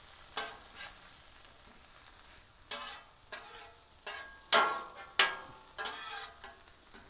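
Metal spatula scraping and knocking against a Blackstone steel griddle top as spinach, garlic and jalapeño fry in butter. A steady sizzle runs underneath a string of sharp scrapes, the loudest about four and a half and five seconds in.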